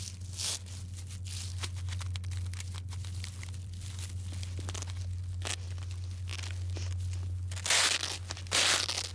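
Hedgehog scrabbling on a kitchen scouring sponge: a run of small crinkling scratches over a steady low hum, with two louder rustling bursts near the end.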